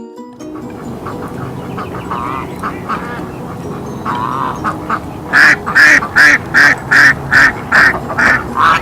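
Ducks quacking: a few scattered quacks at first, then just past halfway a run of about nine loud quacks, two or three a second.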